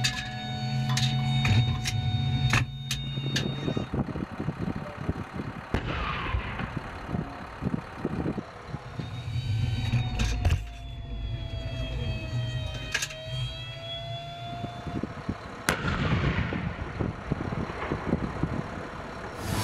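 Crew compartment of an M1 Abrams tank turret: sharp metallic clicks and clanks from the loader working the main gun breech area during the first few seconds. Under them runs a steady mechanical hum and an electric whine that dips and rises in pitch.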